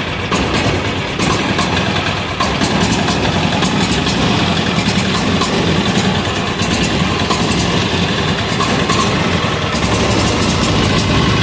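186FA single-cylinder air-cooled diesel engine running steadily, with a loud rapid diesel knock.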